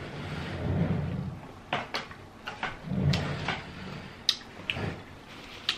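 Close-miked eating sounds: muffled low chewing swells, mixed with sharp clicks from handling shellfish pieces and shells.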